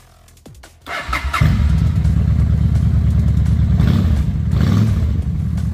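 Honda Shadow 750 motorcycle's V-twin engine started on the electric starter about a second in, catching almost at once, then idling steadily.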